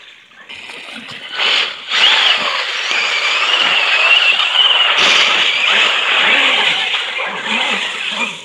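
Brushless electric motor of an Axial SMT10 RC monster truck whining as it spins its tyres through slush and ice, with the hiss of slush spraying. It builds up about two seconds in, the whine wavering in pitch, and eases off just before the end.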